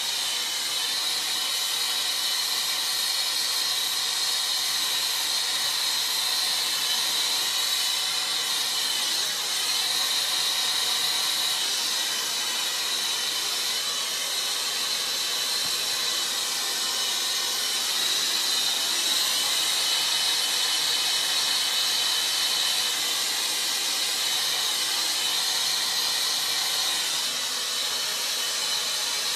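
Hose-fed gas hand torch burning steadily, a loud, even hiss with a high-pitched edge, its flame held on magnesium scrap to set it alight.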